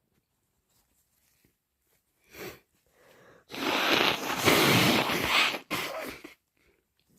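A person with a cold blowing a congested, snotty nose: a quick breath in, then one long, hard blow of about two seconds and a shorter second blow right after.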